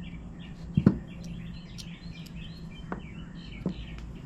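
A few short sharp clicks from hand tools and small parts being worked on a chainsaw carburetor, the loudest about a second in, over a steady low hum, with small birds chirping in the background.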